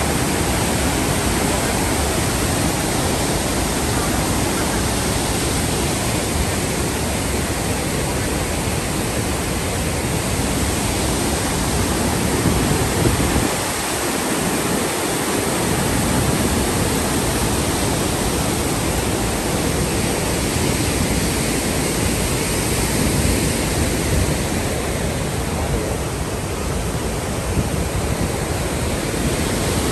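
Large river waterfall: a loud, steady rush of falling white water with no break in it.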